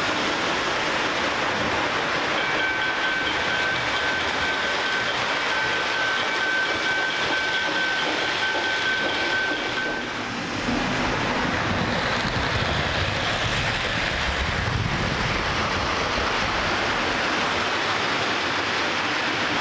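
Lionel O gauge model trains running on three-rail track: a steady rolling rumble and clatter of wheels and cars. A steady high whine holds for about seven seconds in the first half. After a dip about ten seconds in, the rumble comes back deeper and more uneven.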